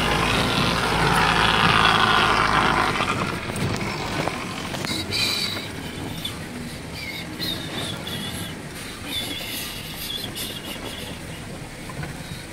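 Truck engine rumbling with cab and body rattles as the truck rolls slowly over a rough dirt road, loudest for the first few seconds and then settling quieter. Short high squeaks come now and then in the second half.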